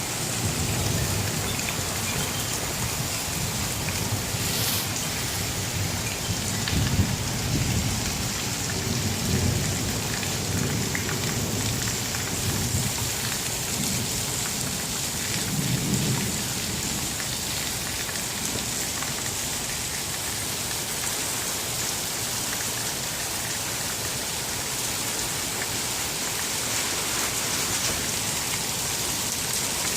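Thunderstorm: rain falling steadily, with thunder rumbling in several rolling swells through the first half or so, the strongest about a quarter of the way in and again just past the middle, then fading while the rain goes on.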